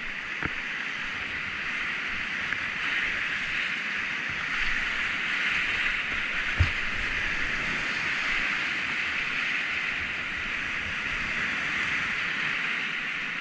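Rushing whitewater of a high-flow alpine river heard from a kayak in the rapids: a steady, loud hiss of churning water. A brief thump about halfway through, with a few fainter knocks.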